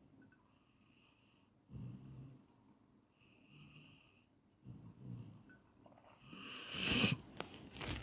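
Snoring in slow breathing cycles: a low rasping snore alternates with a higher whistling breath, each about a second long. A louder, harsher snort comes near the end.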